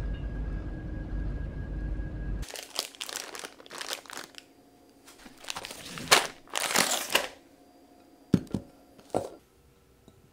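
Low rumble of railway-station ambience with a faint steady tone, cut off sharply about two and a half seconds in. Then plastic ingredient packets crinkle and rustle as they are handled, followed by three light knocks near the end.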